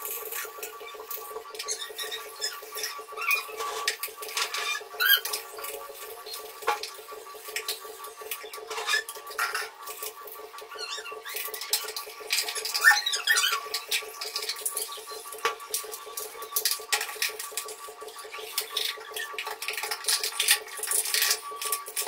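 A toothbrush scrubbing a white plastic soap dish and sink caddy, making irregular scratchy rubbing strokes with a few light plastic knocks, over a steady hum.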